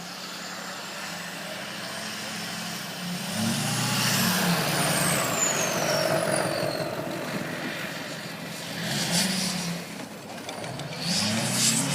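Snow plow truck engine running and revving up in surges, the loudest about four seconds in, again around nine seconds and near the end, as the truck tries to build momentum and get unstuck in deep snow.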